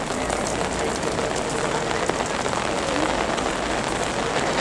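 Steady rain falling on wet stone paving.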